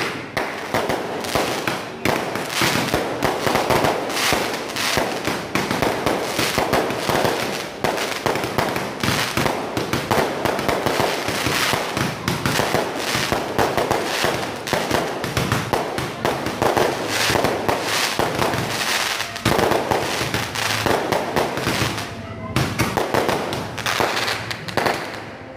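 Aerial fireworks going off in rapid succession: a dense stream of bangs and crackling bursts, with a brief lull near the end.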